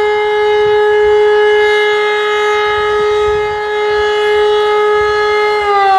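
E57 electromechanical siren sounding the fire-brigade alarm that calls out the volunteer firefighters. It holds one steady tone, then starts falling in pitch near the end as the rotor winds down.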